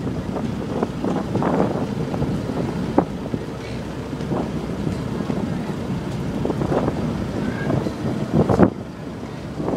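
Wind buffeting the microphone over the steady low rumble of a docked car ferry's engines running, with a sharp knock about three seconds in and a louder thump near the end.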